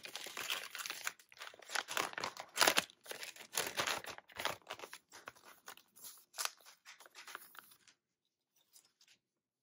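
Thin plastic zip-top soft-lure bag rustling and crackling as hands work its top edge, in irregular bursts that stop about eight seconds in.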